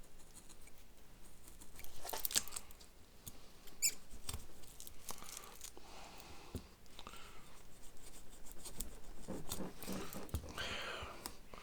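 Scattered small clicks, scrapes and rustles of hands at work cutting off the protruding excess of a sticky tire repair plug.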